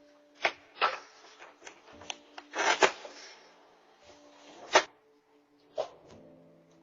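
A series of short, sharp knocks and bumps, with a longer scraping rustle a little before the middle. The loudest knock comes about two-thirds of the way through, and one more follows a second later.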